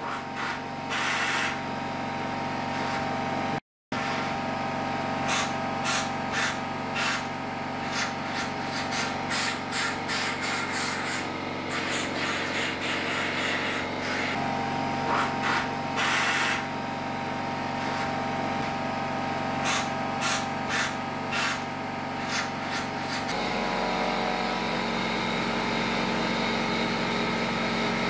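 Compressed air blowing concrete dust out of a drilled anchor hole in many short hissing blasts, over a steady machine hum that changes near the end.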